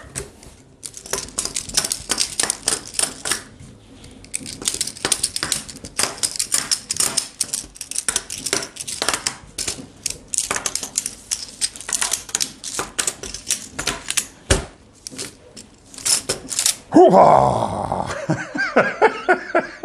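Magformers magnetic plastic tiles clicking and clacking against each other in quick, irregular succession as they are snapped together at speed. The clicking stops near the end, and a man lets out a loud wordless exclamation.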